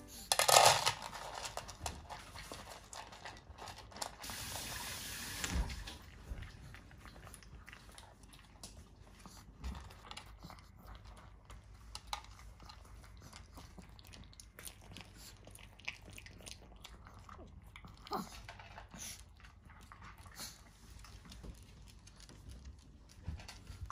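Chihuahua eating from a stainless-steel dog bowl: scattered small clicks and chewing. A louder knock comes about half a second in, and a brief hiss around four to five seconds in.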